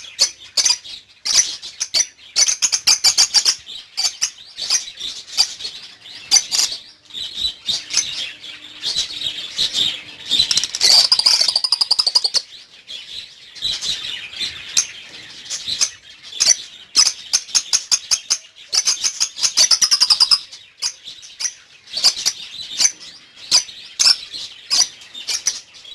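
Pet lovebirds chattering: quick runs of high-pitched chirps that go on almost without a break, with short pauses between the runs.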